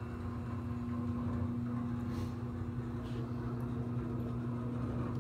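Steady electric hum of a running machine: a constant mid-pitched tone over a lower drone, with a few faint light ticks over it.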